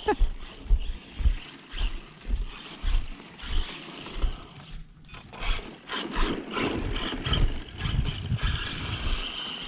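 Electric motor and drivetrain of an Arrma Senton 3S RC truck running and accelerating over grass and snow, louder and busier in the second half with a thin high whine near the end. Repeated low thumps on the microphone run through the first half.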